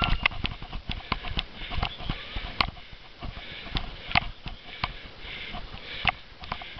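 Cyclo-cross bike clattering and knocking over bumpy grass, in irregular sharp knocks, with wind rumbling on the bike-mounted microphone.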